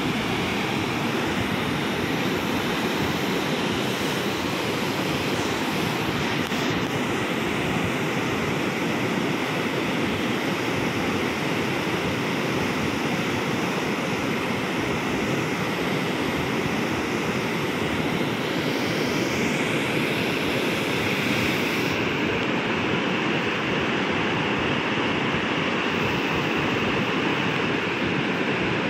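Fast, turbulent whitewater churning and rushing past a concrete pier, a steady, even rush of water.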